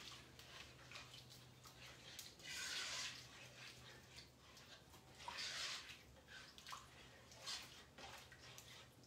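Faint, intermittent wet scraping and stirring from a spoon in a pot of soup as cooked ground beef is added to the broth, a few soft bursts a couple of seconds apart.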